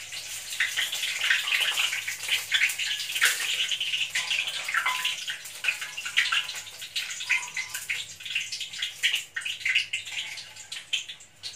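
Banana fritters deep-frying in hot oil in a wok: a steady sizzle with frequent small crackles.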